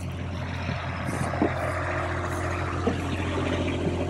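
Avant 528 compact loader's diesel engine running steadily under load, with a few light knocks.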